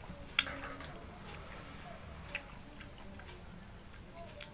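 Small sharp clicks and soft eating sounds as a cooked rice-field snail is picked at in its shell with a toothpick and then sucked out of the shell. The sharpest click comes about half a second in, with fainter ones every second or so after it.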